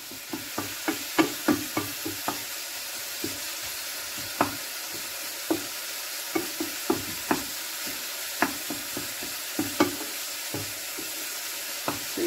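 Diced gammon and onion sizzling steadily in a hot frying pan as the gammon browns. A wooden spatula stirs and scrapes, knocking irregularly against the pan, most often in the first couple of seconds and again near the end.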